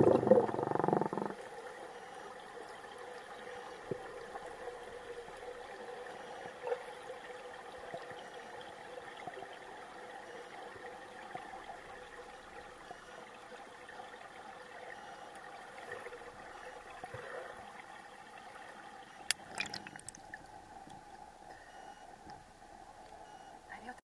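Muffled underwater sound in a swimming pool. About the first second is a loud plunge into the water with a rush of bubbles, then a steady low hum and hiss with a few faint clicks.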